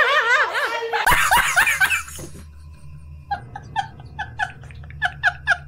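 Several people laughing. After a short lull, a man laughs loudly and rhythmically, about five short 'ha's a second, from a dubbed-in laughing meme clip.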